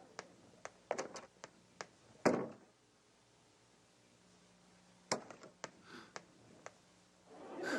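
Scattered light knocks and clicks, with a louder thump about two seconds in and another a little after five seconds.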